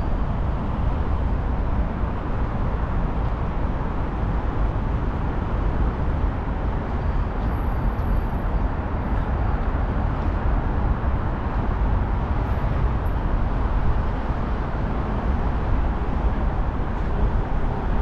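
Steady city street ambience: an unbroken rumble, heaviest in the low end, with no single event standing out.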